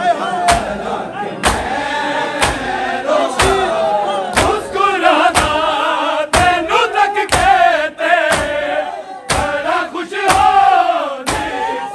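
A group of men chanting a noha lament in unison, with a steady beat of hand-on-chest matam strikes about once a second.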